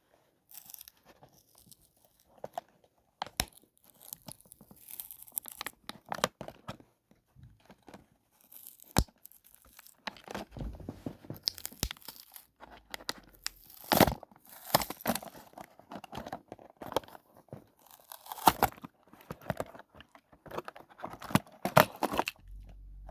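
Toy packaging being opened by hand: irregular tearing, crinkling and rustling of packaging, with a few sharp clicks.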